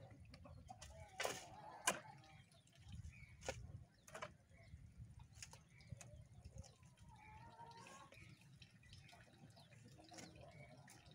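Faint scrapes and knocks of a shovel digging into a pile of soil, a few sharp strikes in the first half. A bird calls faintly around the middle.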